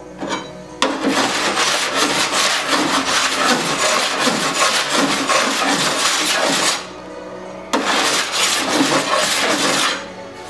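Body file in a holder rasping in quick back-and-forth strokes across the steel skin of a Holden HQ door, in two runs with a short break about seven seconds in. This is file finishing, used to show whether a low spot raised with oxy-torch heat now sits level with the rest of the panel.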